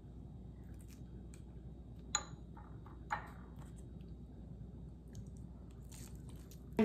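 Two light clicks about a second apart, with a brief high ring on the first: chopsticks tapping the glass dipping-sauce bowl as a gyoza is dipped. Under them a faint steady room hum.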